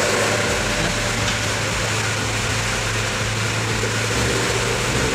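A machine running steadily in the background: an even mechanical noise with a constant low hum.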